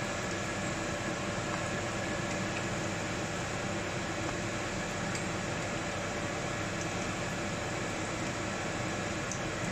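Samosas deep-frying in hot oil: a steady sizzle of bubbling oil, with a few faint ticks.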